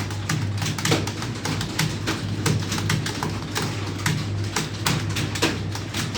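Computer keyboards clacking as several people type at speed, a quick, irregular run of key clicks over a steady low hum.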